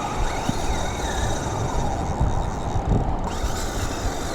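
Steady rumbling noise of wind buffeting the microphone, with the low wash of surf.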